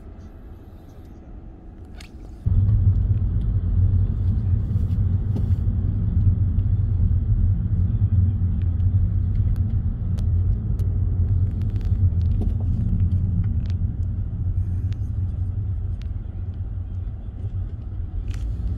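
Road and engine noise inside a car's cabin: a quiet low hum, then, about two and a half seconds in, an abrupt switch to a loud, steady low rumble of a car under way.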